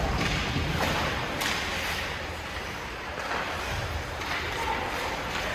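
Ice hockey play on the rink: a steady rush of noise with two sharp knocks about a second in.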